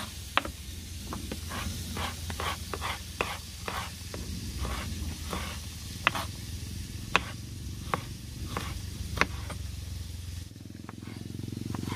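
Kitchen knife slicing carrots against a plastic cutting board: irregular knocks, roughly one or two a second, a few sharper than the rest, over a low steady rumble that drops away near the end.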